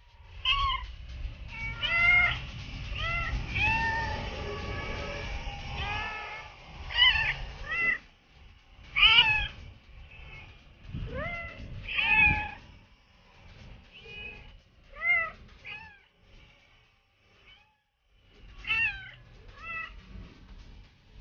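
Several street cats meowing again and again, short rising-and-falling meows that sometimes overlap, with a lull of a couple of seconds near the end.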